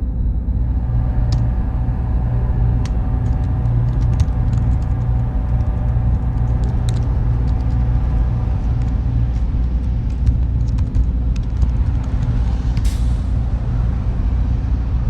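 Steady low mechanical rumble with a faint hum, dotted with light, scattered ticks.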